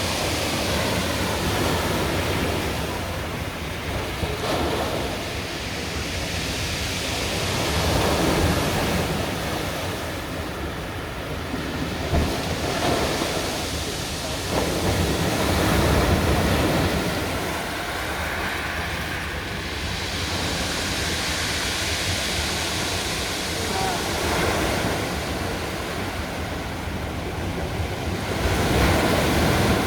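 Storm surf: waves breaking and washing ashore in repeated surges that swell and ebb, with wind buffeting the microphone.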